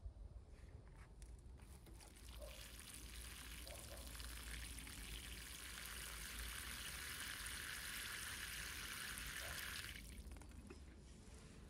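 Water pouring in a steady stream for about seven and a half seconds, then cutting off suddenly.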